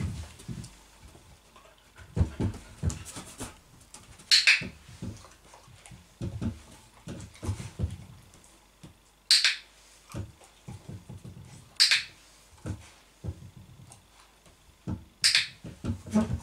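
Dog-training clicker clicking four times, a few seconds apart, each click marking the moment the dog rests her chin on the chair as the cue for a treat. Softer low knocks and scuffles come from the dog moving on the wooden floorboards between clicks.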